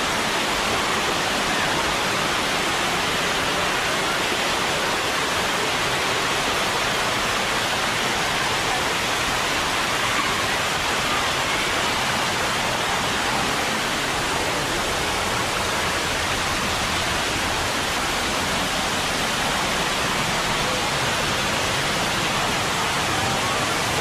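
Waterfall pouring over rock, with water running across shallow rock ledges: a steady, unbroken rush of water.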